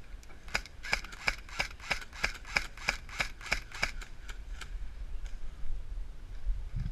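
Airsoft electric rifle fired in rapid semi-automatic, a string of sharp shots about three a second that thin out and fade after about four seconds.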